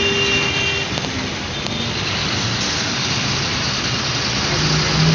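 Steady urban road traffic noise, a continuous wash of engines and tyres, with a brief pitched tone at the very start.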